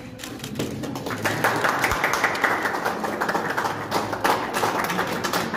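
A small crowd clapping. The applause swells about a second in and keeps going, with voices under it.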